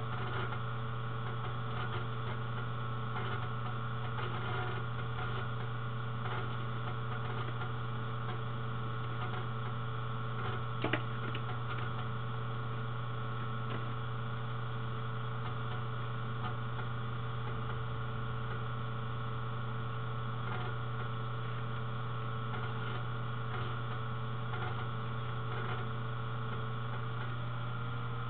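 Steady electrical hum with faint scattered clicks, and one sharper click about eleven seconds in.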